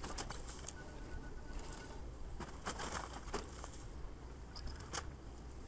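Building demolition by an excavator: clusters of crashing and clattering as wood and debris break and fall, over a steady low rumble of the machine.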